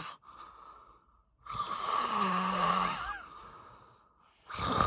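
A man snoring heavily in a deep drunken sleep: one long rasping snore about a second and a half in, and the next one starting near the end.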